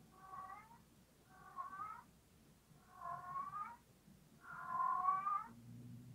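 A three-week-old kitten meowing: four drawn-out cries in a row, the fourth the loudest.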